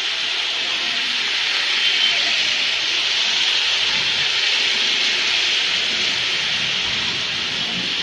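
Steady hiss of tyres on a rain-soaked road as cars and motorbikes pass.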